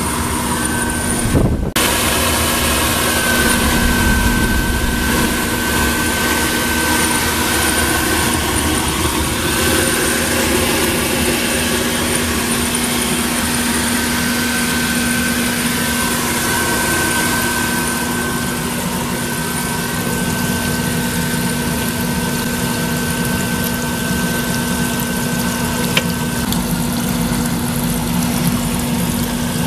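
Electric blower motor running steadily with a constant hum and whine, forcing roaster exhaust through ducting into a bubbling water tank. The sound cuts out for a moment about a second and a half in, then carries on unchanged.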